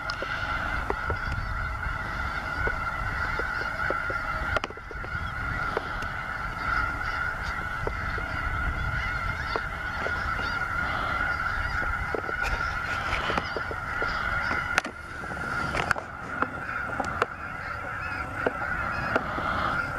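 A large flock of snow geese calling all at once, a continuous din of many overlapping honks, with a low rumble underneath.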